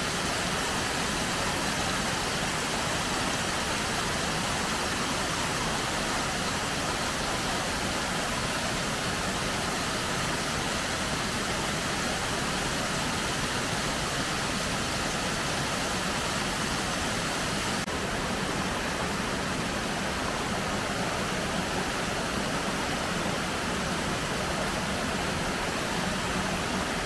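Woodland waterfall: white water pouring over a rock slab in a steady, unbroken rush, with the sound shifting slightly about two-thirds of the way through.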